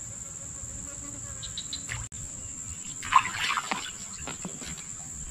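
Insects keeping up a steady, high-pitched trill, with a few short chirps and a brief louder burst of other sounds about three seconds in.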